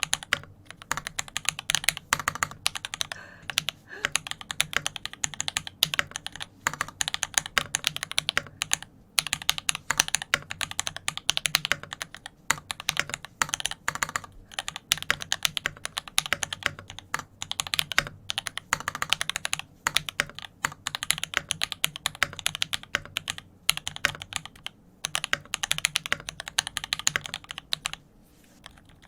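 Steady typing on a custom mechanical keyboard with a brass plate and GMK keycaps: dense runs of keystrokes broken by short pauses, with a longer pause near the end.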